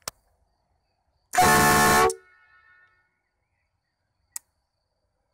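A bicycle-mounted 12 V electric-compressor air horn sounds one short, loud, steady blast lasting under a second, the first test after wiring. A sharp click comes just before it and another about a second before the end.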